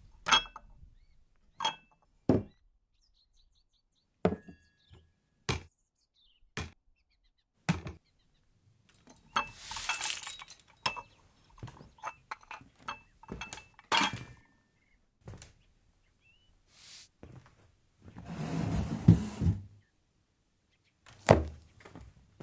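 Layered foley sound effects: a sparse series of separate knocks, clinks and thuds with silence between them, and two longer noisy stretches, about nine and eighteen seconds in.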